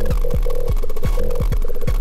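Live electronic music from a Clavia Nord Micro Modular synthesizer patch. Deep synthesized drum hits that drop quickly in pitch repeat in an uneven pattern under short pulsing mid-pitched blips and a faint steady high tone.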